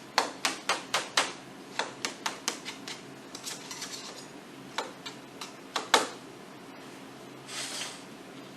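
A serving utensil clicking and clinking against dishware: a quick run of about five sharp clicks at the start, then scattered ones until about six seconds in.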